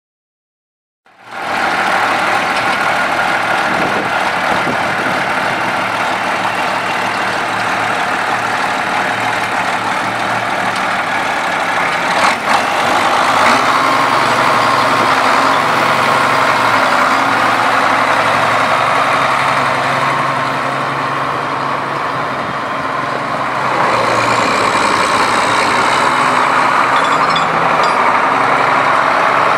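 Case 2390 tractor's 8.3-litre six-cylinder turbo diesel engine running steadily, starting about a second in. There is a single sharp click about 12 seconds in, and the engine grows a little louder, with a faint high whine, near the end as the tractor drives.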